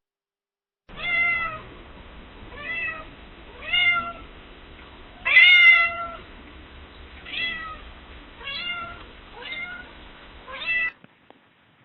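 Domestic cat meowing repeatedly: eight short meows spaced about a second or so apart, the fourth the loudest, over a light background hiss.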